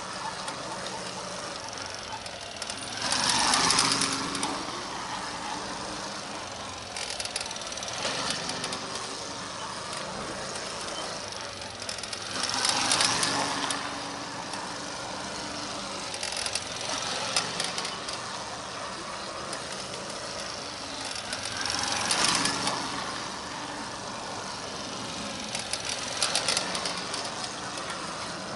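110cc single-cylinder mini bike engines running as they circle in tight figure-eights. A steady engine drone swells loudly about four times as a bike sweeps close, with smaller swells in between.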